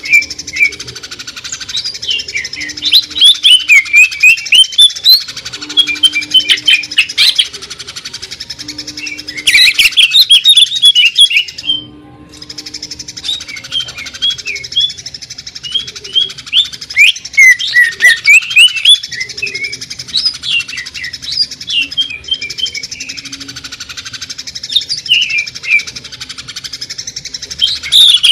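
Green leafbird (cucak ijo) singing in fast, harsh strings of sharp chirps and short whistles: the rapid 'sewing machine' shooting song. The song breaks off briefly about twelve seconds in, then resumes.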